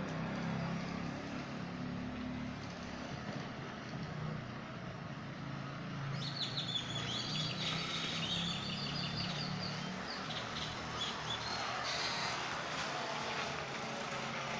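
A container wedged against a bicycle wheel being flapped by the spokes as the bike is ridden, a low buzz meant to imitate a motorcycle, which fades about ten seconds in. A bird chirps between about six and nine seconds in.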